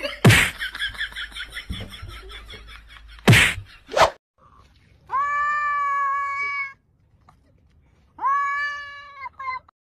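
Two cats play-fighting: two sharp thumps about three seconds apart with a fast scuffling rattle between them. Then a cat gives two long meows, each held at a steady pitch, the second near the end.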